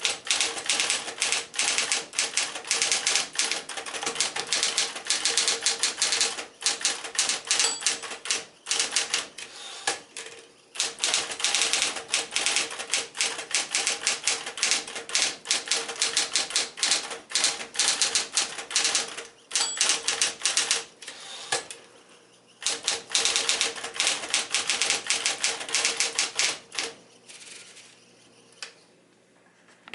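Smith-Corona Electra 120 electric typewriter typing in fast runs of key strikes with short pauses between lines, a steady hum running under the strokes. The typing stops about 27 seconds in, with only a few last strokes after.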